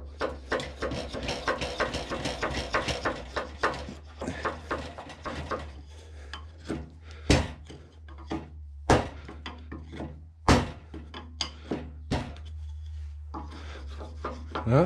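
Shinto saw-blade rasp scraping the end of an oak rafter to take off excess wood at a half-lap joint: quick repeated rasping strokes for the first few seconds, then slower strokes broken by a few sharp knocks.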